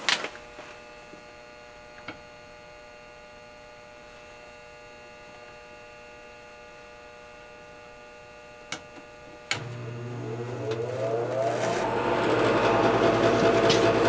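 Steady electrical hum with a few light clicks, then about nine and a half seconds in a click and the 80% gas furnace's combustion (draft inducer) motor starts, spinning up with a rising whine and settling into a steady, louder run at the start of a call for heat.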